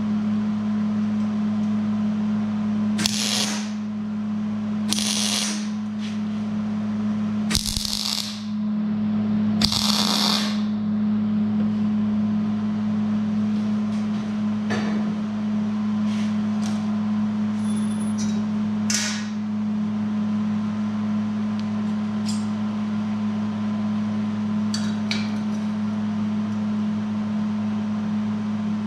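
MIG welder switched on and humming steadily, its transformer and cooling fan running. A few short, noisy bursts come in the first ten seconds, and light metal clinks follow as steel parts are handled on a steel welding table.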